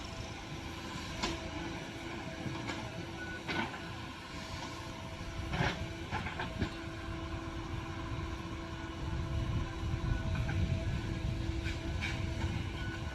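Diesel engine of a JCB 3DX backhoe loader working, with a steady whine over the engine running and a few sharp metallic clanks. The engine grows louder in the last few seconds.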